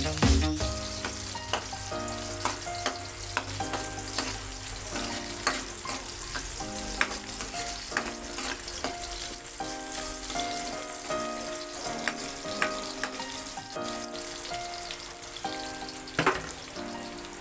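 Sliced garlic, onion and ginger sizzling in hot oil in a wok, stirred with a metal ladle that scrapes and clinks against the pan now and then, with a sharper clink near the end. Soft background music plays underneath.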